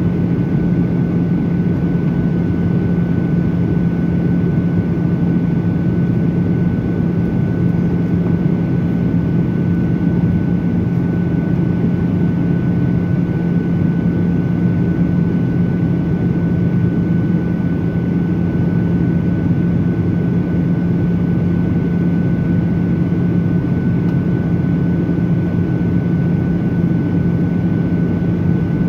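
Cabin noise inside a Boeing 737-800 in flight at altitude: the steady rush of air and drone of its CFM56-7B turbofan engines, with a low hum and a thin, high, steady tone running through it.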